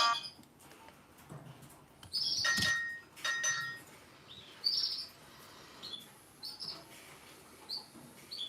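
Bird chirps: about six short, high calls, separated by quiet gaps of a second or so.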